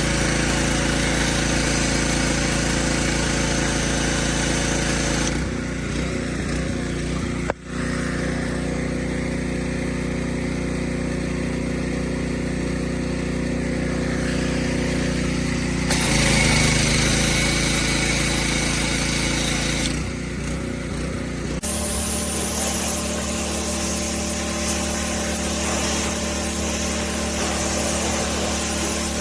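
Pressure washer running steadily with a hiss, in several spliced stretches whose pitch and tone shift abruptly at each cut, with a brief dropout about seven and a half seconds in.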